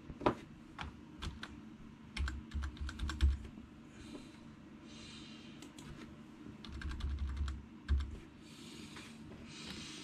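Computer keyboard being typed on: irregular key clicks that come in quick runs about two to three seconds in and again near eight seconds. Between them are a few soft hissing sounds.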